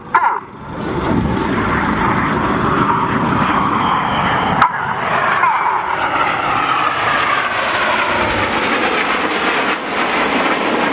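Red Arrows BAE Hawk T1 jets flying overhead: the turbofan engine noise swells in during the first second and holds steady, with a slowly falling pitch in the later seconds as they pass. A single sharp click comes near the middle.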